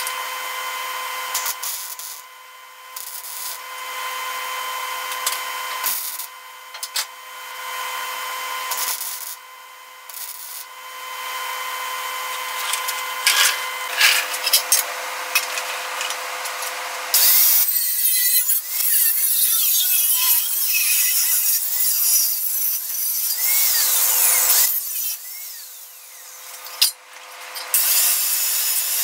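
Electric angle grinder running in repeated bursts with a steady whine, grinding on a sheet-steel patch panel, with short pauses between runs.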